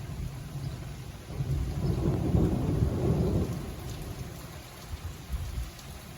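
Thunder rumbling, swelling about a second and a half in, then fading away, with rain falling throughout.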